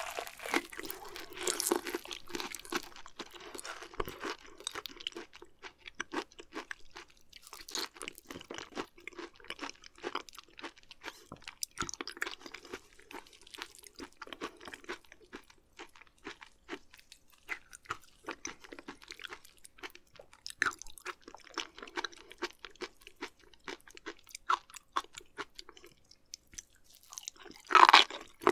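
Close-miked chewing of raw beef offal: a steady run of small clicks and crunches, with a louder burst near the end.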